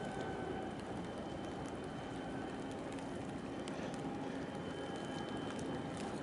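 Steady rumble and hiss of busy port background noise, with faint whining tones from distant machinery coming and going.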